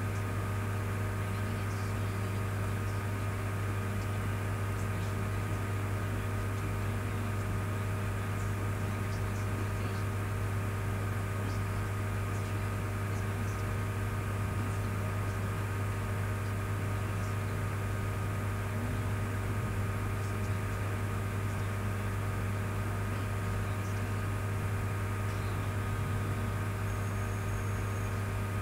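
Steady low hum with a faint hiss and a few faint steady tones above it, unchanging throughout: room tone with no speech.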